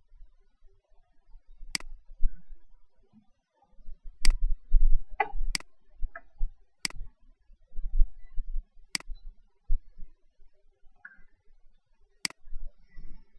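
Sharp clicks at irregular intervals, six in all, a second or more apart, with faint low thumps between them.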